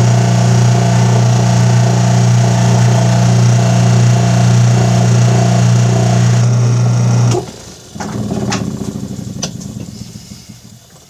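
Electric bench buffer running with a steady loud hum while a brake caliper piston is polished on its buffing wheel. About seven seconds in the hum cuts off suddenly; a weaker sound then fades away, with a few sharp clicks.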